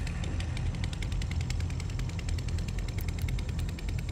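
A small engine running steadily, a low rumble with a rapid, even ticking over it.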